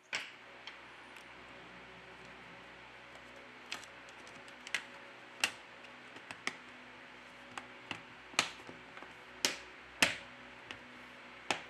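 Plastic back cover of a Huawei Y6s snapping onto the phone's frame as fingers press around its edge: about ten sharp, irregular clicks, the loudest a little past the middle.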